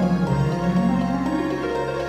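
Instrumental background music with sustained notes and a slow melody line.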